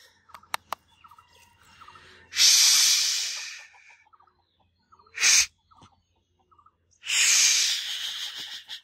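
Toy walkie-talkie giving two loud bursts of radio-static hiss, each about a second and a half long and fading away, with a shorter burst between them and a few light clicks.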